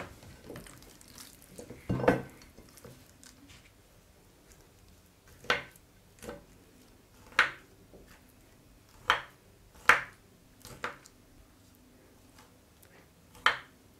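Kitchen knife stabbing holes into a raw lamb leg in a glass baking dish: about eight short, sharp knocks and squelches a second or two apart, with faint handling noise between them.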